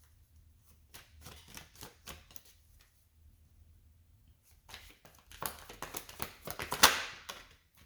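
Tarot cards being handled and shuffled: a few light card flicks, then a quicker run of riffling clicks in the last few seconds, the loudest near the end.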